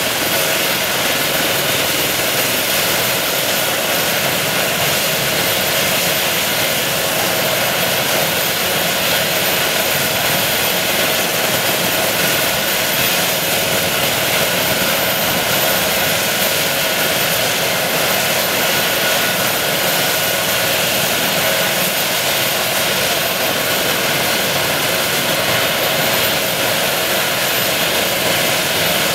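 Eurocopter EC135 helicopter running on the ground with its rotors turning. The twin turbine engines give a steady whine with several held tones over a constant rush of rotor noise.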